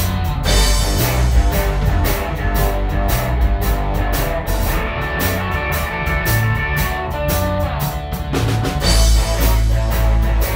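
Live electric blues band playing an instrumental passage, with electric guitar over drums.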